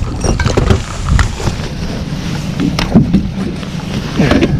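Low wind rumble on the microphone with scattered knocks and clicks of handling and gear in a small fishing boat, and a brief voice-like sound near the end.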